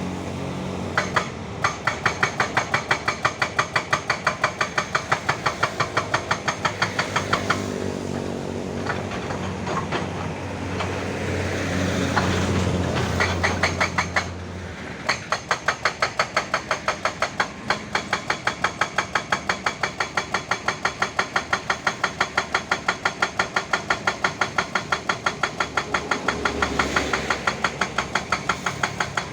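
Hyundai excavator's hydraulic rock breaker hammering, a steady run of sharp blows about three a second over the diesel engine. It pauses for several seconds in the middle while the engine revs up, then resumes.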